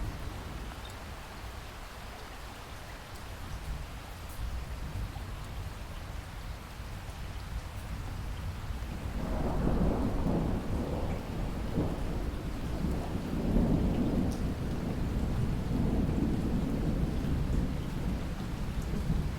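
Steady rain falling, with a long roll of thunder that builds about halfway through and rumbles on for several seconds.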